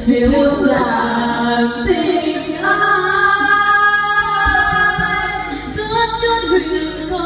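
Women singing in turn into karaoke microphones, the voice amplified through the room's sound system, with one long held note about three seconds in.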